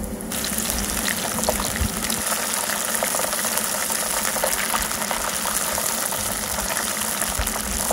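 Breadcrumbed onion rings deep-frying in hot peanut oil: a steady, fairly loud sizzle full of small crackles, setting in abruptly right at the start.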